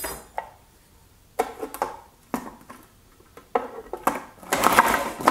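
Plastic clicks and knocks as the food processor's bowl and lid are handled and fitted. About four and a half seconds in, the food processor's motor starts, blades chopping frozen banana and strawberry chunks.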